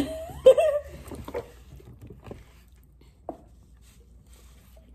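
A young child's short wordless vocal sound, rising then holding in pitch, followed by a few faint taps and clicks at the table.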